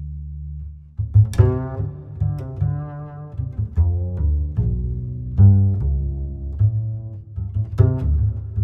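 Background music: deep, sustained bass notes under a line of plucked string notes, each starting sharply and fading.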